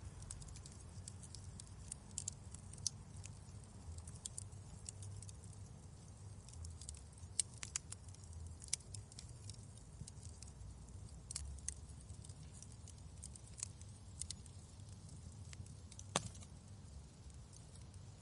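Wood fire crackling in a fireplace: irregular sharp pops and snaps over a low, steady rumble of the flames, with a couple of louder pops about seven and sixteen seconds in.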